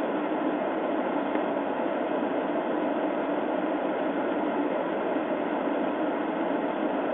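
Steady static-like hiss on a police dashcam's audio, even throughout, with no distinct events.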